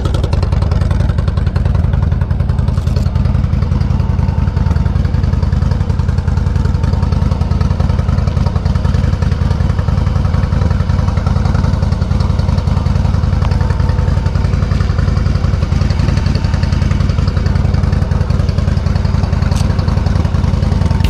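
Yamaha V Star V-twin cruiser engine idling steadily, a loud, even low rumble.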